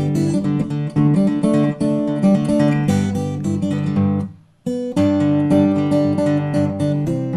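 Acoustic guitar strumming chords, with a brief dropout of about half a second around four seconds in.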